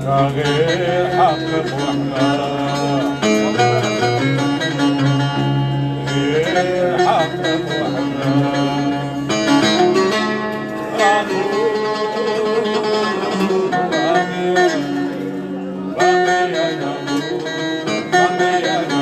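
Live music with plucked string instruments over sustained low notes, and a wavering sung melody.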